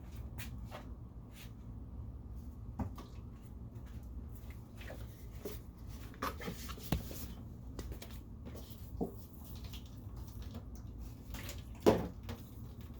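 Pipe fittings and tools being handled: scattered light knocks and clicks, with one sharper knock about twelve seconds in, over a steady low hum.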